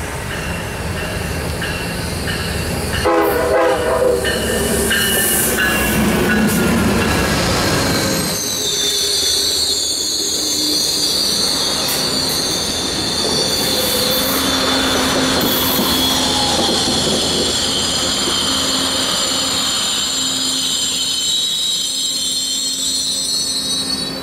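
Amtrak passenger train of stainless-steel cars rolling past, with a short horn sound about three seconds in. From about eight seconds on, a steady high-pitched metallic squeal from the wheels and brakes rings over the rumble of the cars.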